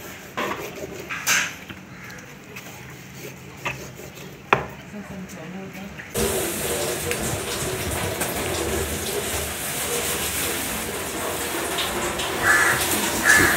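A few sharp knocks as a large kitchen knife scores through a barracuda's scaled side onto a wooden cutting board. About six seconds in, a steady rush of running water begins and carries on.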